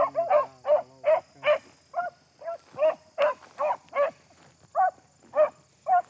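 Beagles barking in a steady run of short barks, about two to three a second, as hounds do when they are on a rabbit's scent.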